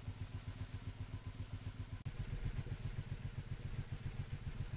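Cruiser motorcycle engine idling with a steady low pulsing beat. A single sharp click about two seconds in.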